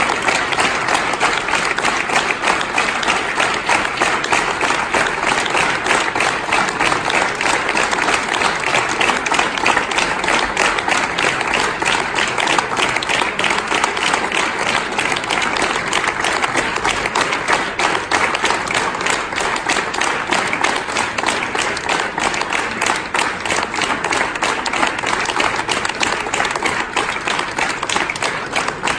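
A crowd applauding: many people clapping in a steady, unbroken round.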